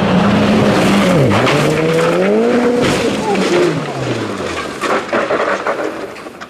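Rally car engine running hard: its pitch dips sharply about a second in, climbs again, then falls away, over a steady rushing noise.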